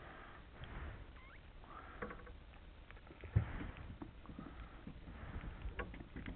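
Water lapping against a boat's hull, with light clicks of hands working a jigging rig and one low knock about three and a half seconds in.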